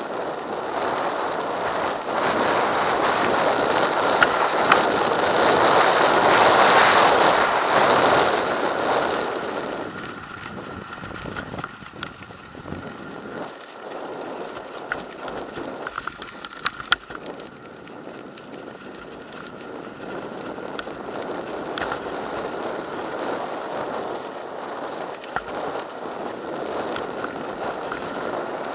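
Wind buffeting the microphone and tyres rolling over a loose gravel dirt track while riding, louder for the first several seconds and then easing off, with scattered sharp knocks and rattles from bumps.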